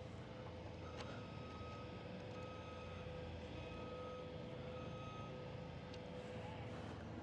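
Faint electronic warning beeper on the skid steer, sounding short beeps about once a second over a steady hum and low rumble, with a single click about a second in.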